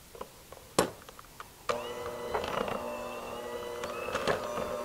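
A sharp click, then about a second and a half in a KitchenAid electric hand mixer starts up, its motor running steadily as the beaters cream soft butter and sugar in a glass bowl, with scattered clicks over the motor.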